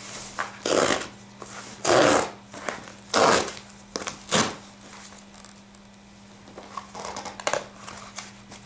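Tear strip being ripped along a FedEx Express cardboard box: four short tearing sounds about a second apart, followed by quieter handling and rustling of the box near the end.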